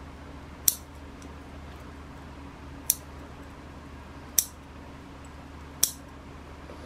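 Fine-bladed bonsai bud-trimming scissors snipping new shoots off a sekka hinoki cypress: four sharp snips, a second or two apart.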